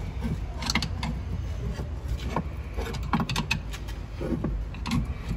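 Scattered knocks and clicks of a sterndrive cover being worked loose by hand from a Volvo Penta sterndrive leg, over a low steady rumble.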